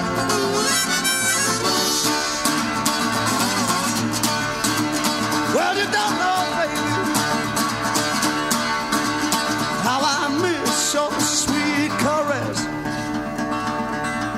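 Instrumental break in an acoustic country-style song: harmonica playing lead with sliding notes over acoustic guitar backing.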